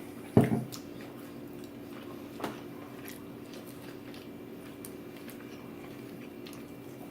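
A person chewing and biting pizza, with small scattered clicks of eating. A sharp knock comes about a third of a second in, with a smaller one about two and a half seconds in, over a steady low hum.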